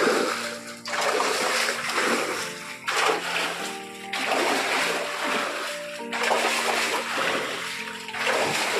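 Water splashing in repeated surges about once a second as a rope-slung bucket scoops and throws water out of a shallow culvert channel, over background music.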